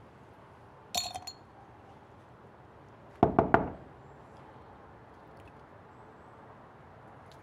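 A small glass jar clinking and knocking: a quick rattle of clinks about a second in, then four sharp knocks in quick succession a little after three seconds, the loudest sounds.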